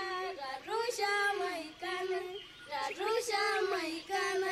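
A single high voice singing unaccompanied: held notes that bend and waver, in short phrases broken by brief pauses.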